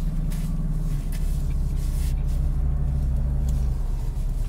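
Car engine idling, heard from inside the cabin: a steady low hum that shifts about a second in, a deeper drone coming up for a few seconds.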